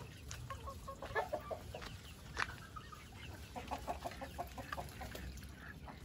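Chickens clucking in short calls, with a quick run of clucks near four seconds in.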